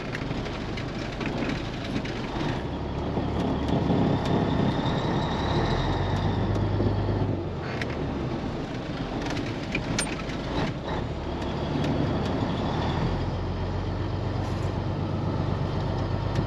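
Caterpillar 3406B diesel in a Peterbilt 362 cabover, heard from inside the cab, running at low speed as the truck creeps and turns. The engine note strengthens about six seconds in and again near the end. A faint high whistle rises and falls in the first half, and a few light clicks come later.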